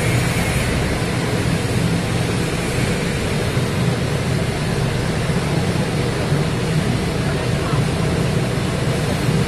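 Industrial machinery running steadily: a constant low hum under an even hiss, with no change in pitch or level.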